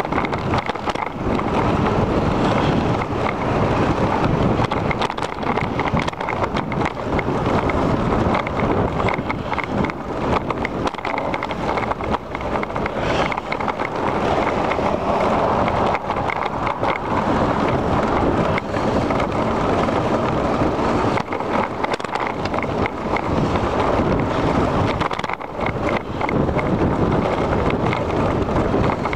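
Wind buffeting the microphone of a bicycle-mounted camera while riding, over a steady rumble of tyres on pavement, with frequent small knocks and rattles from bumps in the path.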